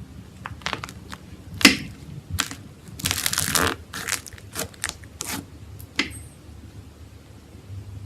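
Slime being squeezed and pressed by hand, giving a run of short sharp pops and crunches with one longer burst near the middle; it stops about six seconds in.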